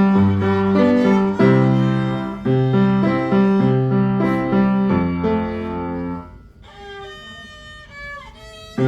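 Violin and piano playing a children's song together, the piano keeping a steady rhythmic accompaniment. About six seconds in the piano drops out, leaving a quieter held violin line, and the piano comes back in near the end.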